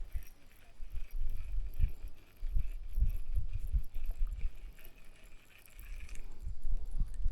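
Wind buffeting the microphone in uneven gusts, a low rumble that rises and falls every second or so.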